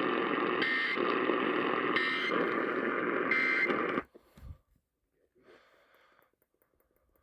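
Three short EAS end-of-message data bursts, about 1.3 seconds apart, over loud radio static; they mark the end of the alert. The receiver's audio cuts off suddenly about four seconds in, leaving only faint low sounds.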